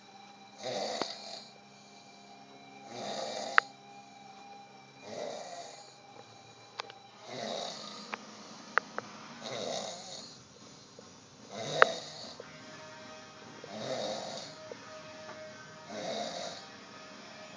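A man passed out drunk, snoring heavily in a steady rhythm of about one snore every two seconds. Faint music and a few sharp clicks sound underneath.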